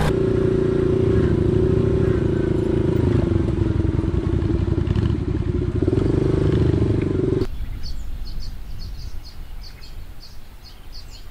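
Small dirt bike engine running close by, steady with a slight rise in pitch about six seconds in. It cuts off abruptly about 7.5 seconds in to a faint, distant motorbike engine with a rapid, regular high chirping over it.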